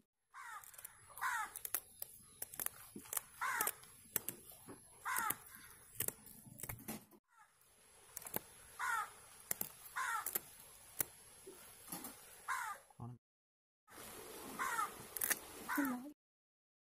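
A crow cawing over and over, a short call every one to two seconds, over sharp clicks and scrapes of kitchen scissors snipping fins and scraping scales off a fish.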